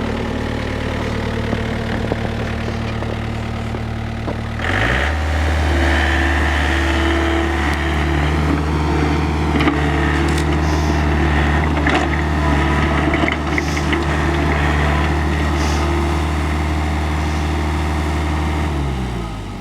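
Hitachi EX60 mini excavator's diesel engine running steady. About five seconds in it is throttled up to a louder, higher speed and held there, then it drops back near the end.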